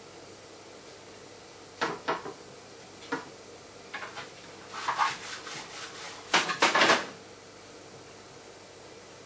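Kitchen items being handled and set down: a few separate knocks, a rattling run of knocks about five seconds in, and a louder cluster of knocks near the end.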